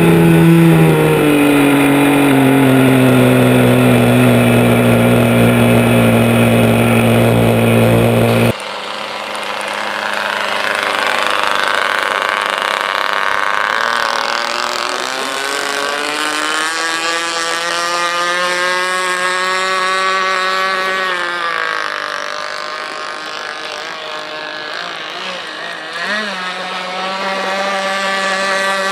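Single-cylinder nitro glow engine of a radio-controlled model speedboat running flat out on 10% nitro fuel. For the first eight seconds it is heard close up from on board, a loud whine that settles slightly lower after a couple of seconds. After a sudden cut it is softer and more distant, its pitch rising and falling as the boat speeds up and turns.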